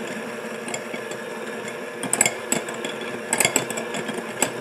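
KitchenAid electric hand mixer running steadily, its beaters lightly beating egg yolks in a glass bowl. A few sharp clicks sound in the second half as the beaters tick against the glass.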